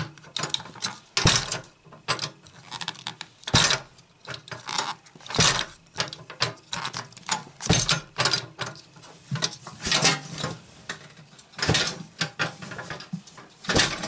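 Small steel electronic keypad safe being bumped repeatedly on a pillow: sharp knocks and metal rattles from the box and its lock, the hardest about every two seconds with lighter rattling between. This is the bump-opening trick that jolts the locking solenoid down so the knob can be turned.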